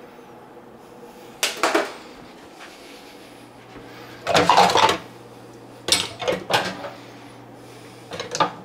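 Kitchen utensils being handled and set down on a stainless steel counter: four short bursts of knocking and rattling, a second or two apart.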